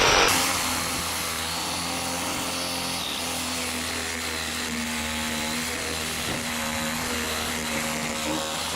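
Power tool running steadily as it cuts through the sheet-metal housing of an HVAC blower to free a rusted, seized blower motor. It is loudest for a moment at the start, then holds an even motor hum.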